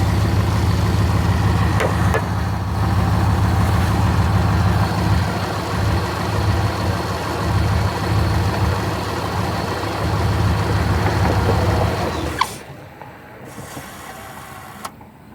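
The V8 engine of a 1989 Dodge Ramcharger running steadily, with a faint high steady squeal, then switched off about twelve seconds in with a sharp click. The squeal is the intermittent squeal or chirp under investigation, which comes and goes with throttle position.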